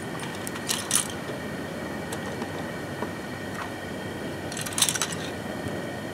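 Steel foothold traps and their chains clinking and rattling in two short bursts, about a second in and again near five seconds, as they are handled and dropped into a dye pot. Under it, a steady hiss from the propane turkey-fryer burner heating the pot.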